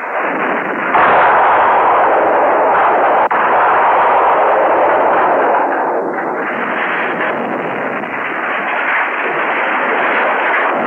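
Film explosion sound effect: a blast that comes in abruptly and swells about a second in into a long, loud, continuous rumble of explosion and fire as a ship blows up.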